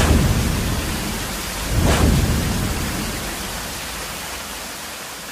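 Thunderstorm sound: a steady rain-like hiss with low thunder rumbling, which swells once about two seconds in and then slowly fades away.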